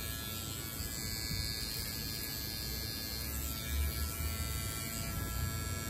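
Electric hair trimmer buzzing steadily as it edges the hairline at the temple and sideburn.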